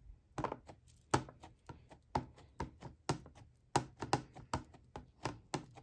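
Plastic-cased ink pad tapped repeatedly onto a rubber stamp to ink it: a quick, uneven run of light taps, about three to four a second.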